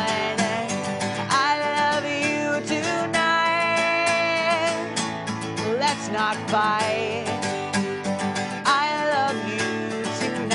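Acoustic guitar strummed under a singing voice holding long notes that slide up and down, as in a light country-style song.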